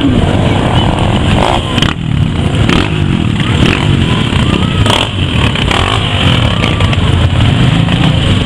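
Many motorcycles, dirt bikes and road bikes, riding past at low speed, their engines running together, with several rising and falling in pitch as riders work the throttle.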